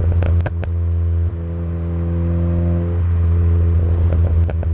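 Exhaust of a turbocharged 1.7-litre Ford Puma four-cylinder engine in a Ford Fiesta, through a stainless turbo-back system with a Piper back box, heard at the tailpipe while driving at steady revs. A quick cluster of exhaust pops comes in the first second, and two more near the end.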